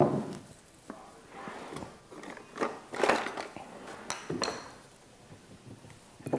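A ceramic oil cruet set down with a knock on a wooden counter, then raw potato wedges dropped one after another into a glass bowl of olive oil, clinking and knocking against the glass.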